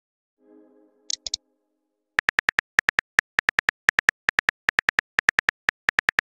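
Simulated phone keyboard clicks from a texting-story animation: a fast, uneven run of short identical taps, about six a second, as a message is typed letter by letter. A few sharper clicks come about a second in, before the typing starts.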